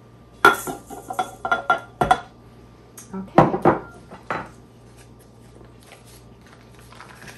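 Quick clinks and taps of a small glass bowl against the stainless steel bowl of a stand mixer as sugar is knocked out of it, followed by a few knocks as the glass bowl is set down on a wooden table.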